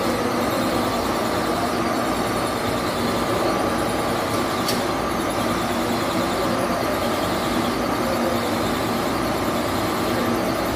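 Metal-turning engine lathe running steadily, a thin steady whine over the motor and gear noise. A short click about four and a half seconds in.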